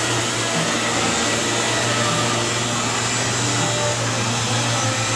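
Hose-fed orbital sander running steadily on an RV's fibreglass front cap: a constant whirr with a hiss of air.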